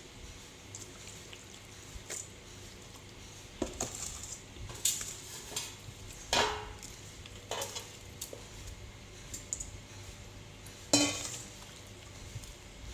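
Kitchen dishes and utensils clinking and knocking, a series of separate knocks with the loudest about six and eleven seconds in.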